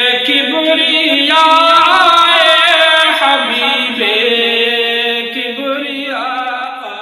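Male voice singing an Urdu naat in long, wavering held notes. The voice softens toward the end.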